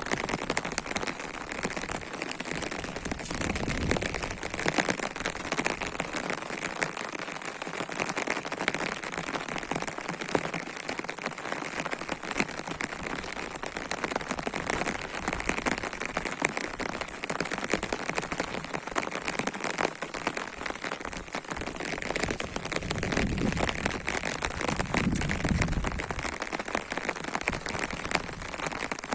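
Heavy rain falling steadily, a dense hiss of countless drops. A low rumble rises for about three seconds near the end.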